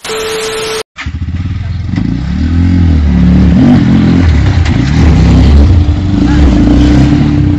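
A three-wheeled cargo motor tricycle's engine running hard and revving up and down, with voices over it. The first second holds a short hiss with a steady tone before the engine comes in.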